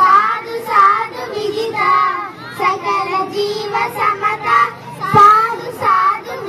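Young children singing a patriotic song about Bharat Mata together into handheld microphones, with a brief thump about five seconds in.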